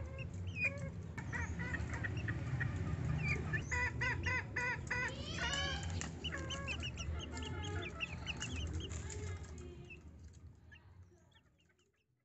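Young bekilus, green junglefowl × bekisar hybrids, peeping and chirping in quick runs of short high calls over a low steady hum. The sound fades out near the end.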